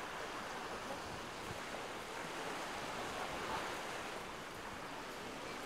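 Steady ocean surf with wind on the microphone, an even rushing hiss with no distinct events.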